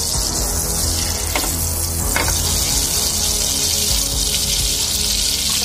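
Butter and oil sizzling and bubbling steadily in a hot kadai, with a couple of sharper crackles about one and two seconds in.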